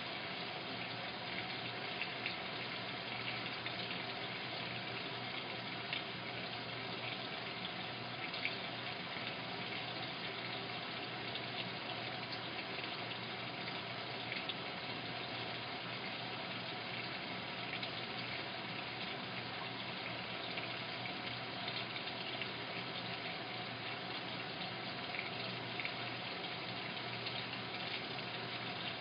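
Washing machine filling: a steady rush of water pouring into the drum through the inlet valve, unbroken throughout.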